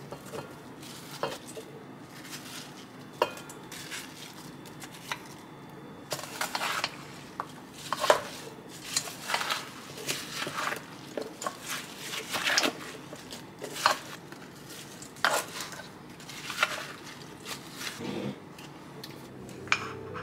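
A spoon stirring chunks of apple in a stainless steel mixing bowl, scraping and knocking against the metal sides in irregular strokes. The strokes are sparse at first and become busier and louder from about six seconds in.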